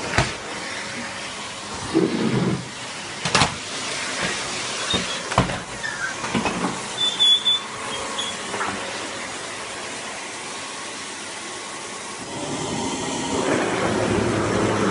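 Vacuum cleaner running with a steady hissing noise, with a few sharp knocks along the way; the suction sound grows louder and fuller near the end.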